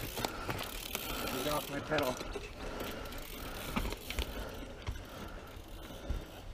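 Mountain bike's rear freehub buzzing as the rider coasts down the trail, with short clicks and knocks from the bike over rough ground.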